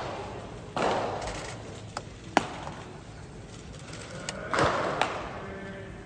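Pitched baseballs popping into catchers' leather mitts: about five sharp smacks, the loudest trailing off with an echo.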